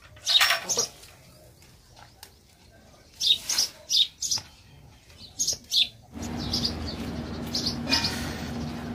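Birds chirping in short bursts. About six seconds in, a steady background noise with a low hum comes in and the chirping goes on over it.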